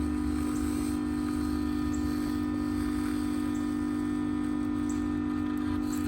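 Steady electrical hum from bench equipment, with faint light ticks about once a second.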